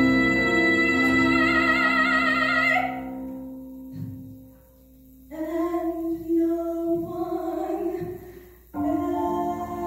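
A young woman sings a musical-theatre ballad into a microphone. She holds a long note with widening vibrato until about three seconds in. After a brief quieter gap she resumes the melody, with a short pause near the end.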